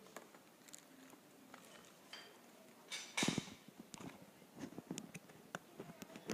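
Packaging and parts being handled during an unboxing: a few light clicks and taps, a louder rustle about three seconds in, then a quick run of sharp clicks and knocks.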